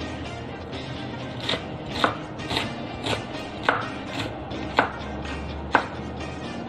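Large kitchen knife chopping red onion on a cutting board: about eight sharp knocks of the blade on the board, roughly two a second in an uneven rhythm.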